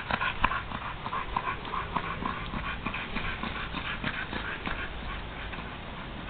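A tired pit bull panting fast and hard from exertion, the breaths growing fainter near the end as it moves away.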